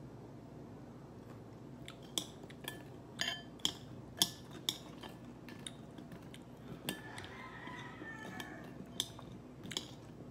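Metal chopsticks clinking and tapping against a ceramic bowl: about a dozen sharp, ringing clicks at uneven intervals, starting about two seconds in, with a short scrape about seven seconds in.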